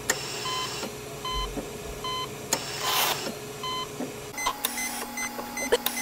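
Hospital heart monitor beeping steadily, one short beep a little under once a second. About four seconds in, the beeps change to a higher pitch and a steady low hum comes in.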